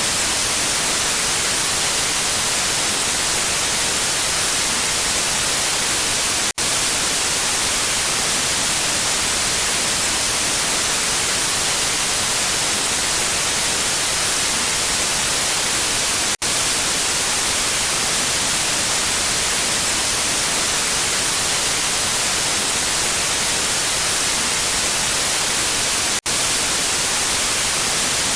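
Steady white-noise static hiss of a lost radio/TV signal, even and without tones and strongest in the upper range. It drops out for an instant three times, about every ten seconds.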